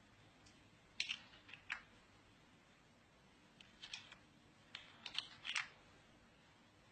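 Faint, sharp clicks and taps in small clusters: a few about a second in, and more from about four to five and a half seconds in, over a quiet room hum.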